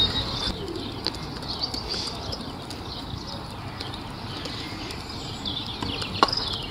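Birds chirping and singing in the background, with one sharp click about six seconds in: a croquet mallet striking the ball.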